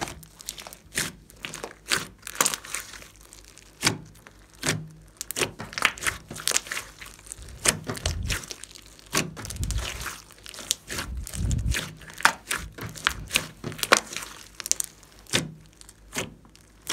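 Hands kneading and stretching a large lump of glossy slime mixed with floam beads: rapid, irregular sticky clicks and crackling pops, with a few dull squelches in the middle as the slime is pressed down.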